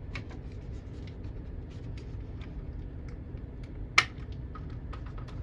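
Smoke/CO alarm being twisted off its mounting base and its battery door opened by hand: faint scattered clicks and rubbing, with one sharp snap about four seconds in.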